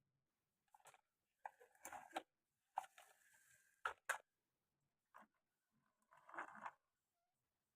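Glass marbles clicking and rattling along a wooden marble run in several short spurts. Around three seconds in there is a brief stretch of steady rolling between sharp knocks.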